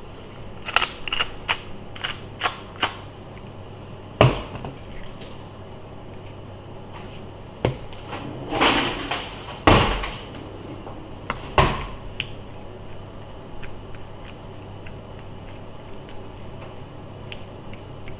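Kitchen handling while avocado halves on a plastic cutting board are seasoned with salt and pepper: a quick run of light clicks, then a few sharp knocks and a short gritty burst, over a low steady hum.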